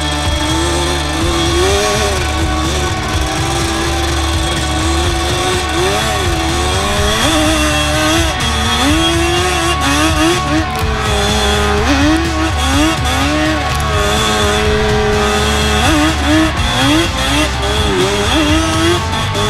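Sport quad (ATV) engine revving up and falling back repeatedly as it is ridden, over background rock music.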